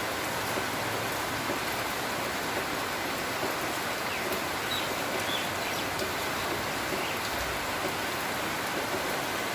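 Steady monsoon rain falling, an even hiss that holds at one level throughout.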